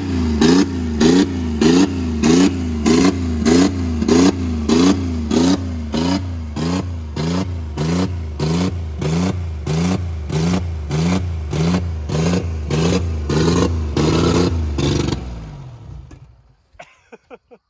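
Chevy Equinox engine running at wide-open throttle with Coca-Cola in its crankcase instead of oil. The revs pulse up and down about twice a second, then the engine winds down and stops about fifteen seconds in.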